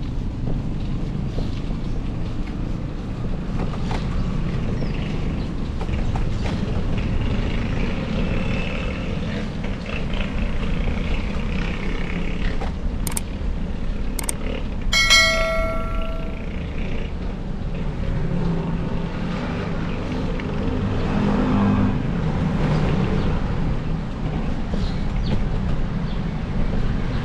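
Steady wind and road noise from a moving bicycle ride on a street. About halfway through come two sharp clicks and then a single bell-like ding that rings for about a second.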